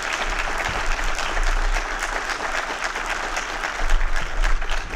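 Large seated audience applauding: a dense, steady clatter of many hands clapping, with a few sharper individual claps near the end.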